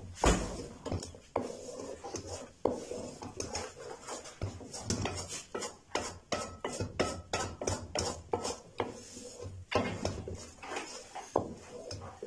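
Wooden spoon stirring and scraping melted jaggery around a metal pan, with many irregular knocks and scrapes of the spoon against the pan's sides and bottom.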